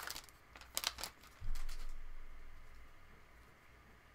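Baseball trading cards being handled and flipped through: a few crisp snaps and slides of card stock, then a soft thump about a second and a half in.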